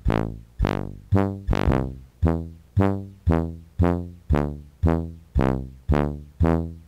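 Background music: a steady run of pitched notes, each striking sharply and fading, about two a second, over a low bass.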